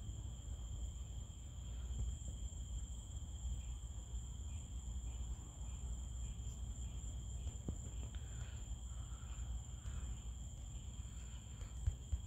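Crickets trilling steadily on a night outdoors, heard as two unbroken high-pitched tones over a low rumble.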